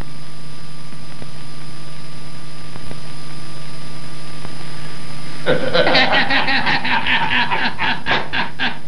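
A steady low hum with hiss, then about five and a half seconds in, loud laughter breaks out in rapid pulses, several a second, and runs on to the end.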